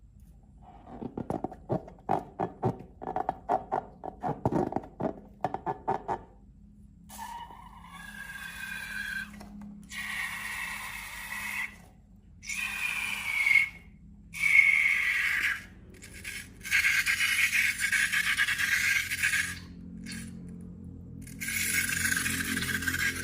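Slime being squished, with rapid crackling pops for the first few seconds. Then a series of squealing, hissing bursts a few seconds each, like air let out through a stretched balloon neck.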